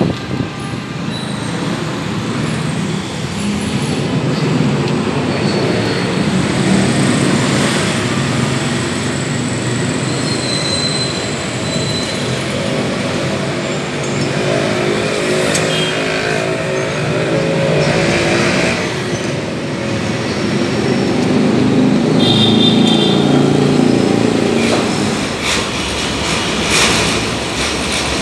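Steady street traffic with vehicle engines passing; one engine note stands out in the middle and another a little later. A few light clicks near the end.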